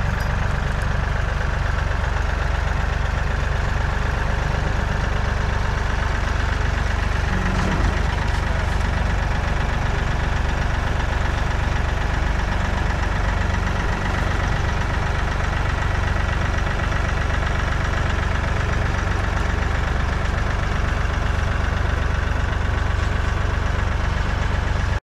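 Kubota compact tractor's diesel engine running steadily while its front-end loader raises a large wooden box on pallet forks.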